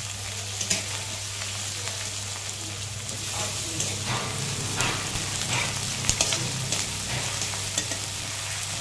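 Chopped red onion and panch phoron sizzling in hot oil in an aluminium kadai, with a metal spatula scraping and stirring against the pan every second or so. A steady low hum sits underneath.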